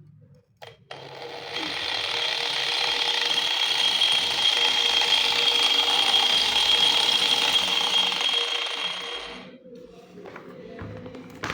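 Electric angle grinder switched on with a click about a second in, spinning up to a steady high whine, then switched off near the end and winding down.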